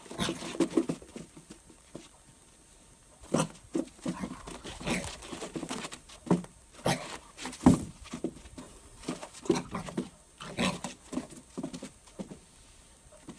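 Small puppy giving short, irregular barks and yips at its reflection in a mirror.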